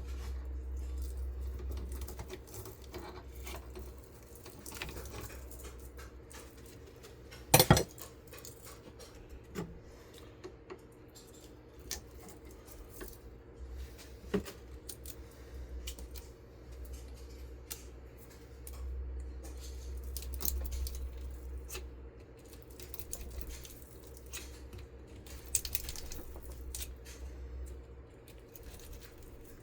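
Metal tool clicks and scrapes as the copper windings of a ceiling fan motor are cut and worked apart with cutters, with one loud sharp clank about seven seconds in and a smaller one about halfway through.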